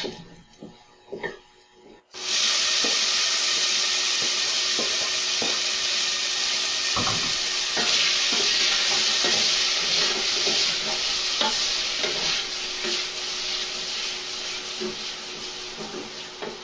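Garlic sizzling in hot olive oil in a pan, the hiss starting suddenly about two seconds in and slowly fading, with light taps and scrapes of a utensil stirring it. A few knocks come before the sizzle starts.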